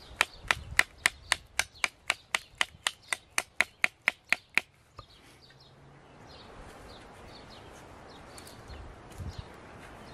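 A wooden peg being knocked into a hole in a green wood pole: about eighteen quick, even taps, nearly four a second, stopping about four and a half seconds in. Then quieter handling of the poles.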